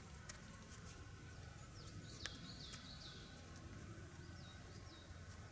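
Quiet woodland ambience with a handful of short, faint bird chirps in the middle, and a single soft tick about two seconds in.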